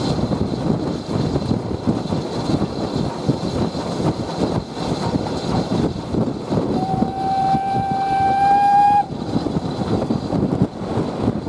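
BR Standard Class 4 2-6-4T tank engine running along the line, with rumbling running noise and wind on the microphone. About seven seconds in its steam whistle blows one steady note for about two seconds and cuts off sharply, sounded for a whistle board.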